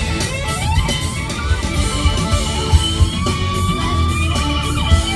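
Rock music with guitar over a steady drum beat and bass.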